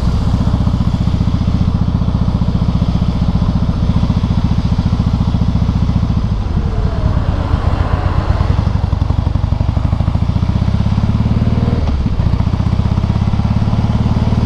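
Harley-Davidson Softail Heritage V-twin running under way through Screamin' Eagle exhausts, its firing pulses easing off about six seconds in and picking back up later. The rider is listening for a strange noise from the primary drive that comes on when he slows down, as if something were holding the bike back.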